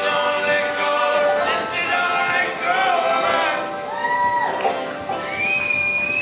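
Unamplified acoustic folk music: men's voices singing in harmony over accordion, acoustic guitar and upright double bass, with a long held note sliding upward near the end.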